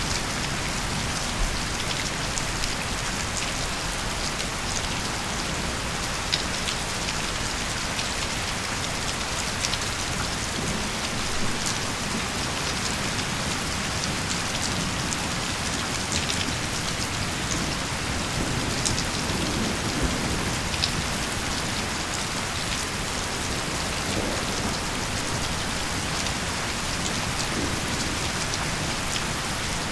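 Steady heavy rain with scattered sharp drop hits, and a few soft, low rumbles of distant thunder.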